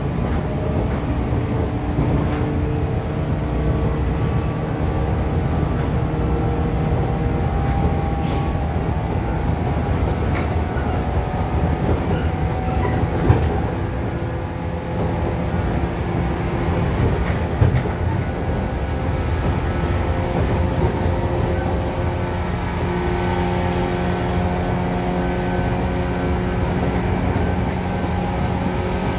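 Running sound of a JR Kyushu 415 series 500 subseries electric multiple unit heard from inside a motor car: a steady rumble of wheels on rail with the whine of the traction motors, and two short knocks in the middle.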